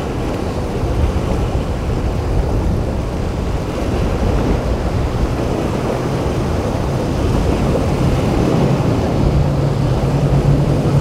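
Boat engines running in a rough inlet, with surf and wind on the microphone; a low engine hum grows louder near the end.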